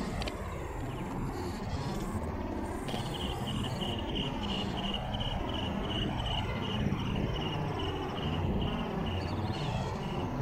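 A high, evenly pulsed chirping call, about three pulses a second, starts about three seconds in and keeps going. Under it runs a steady low rumble of background noise.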